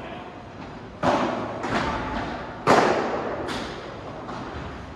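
Padel ball being struck in a rally: a handful of sharp hits off rackets, glass walls and the court, the loudest about two and a half seconds in, each echoing in the indoor hall.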